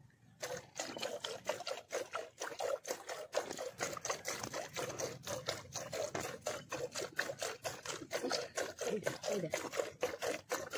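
A cow being milked by hand: rhythmic jets of milk squirting into an aluminium bucket, several strokes a second, starting about half a second in.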